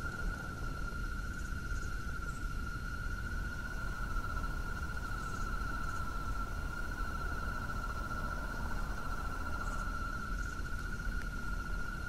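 Steady, unbroken high-pitched insect-like trill over a low rumble.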